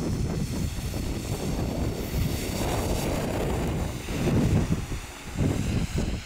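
City transit bus driving past close by, engine and tyre noise. Wind buffets the microphone in irregular gusts in the second half.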